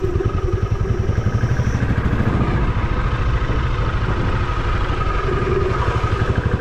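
Motorcycle engine running steadily while riding, with an even, rapid exhaust pulse.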